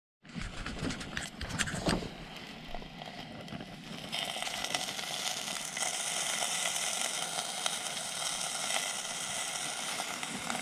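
Light clinks and handling knocks of a stainless steel camp pot, over a steady hiss that sets in about four seconds in.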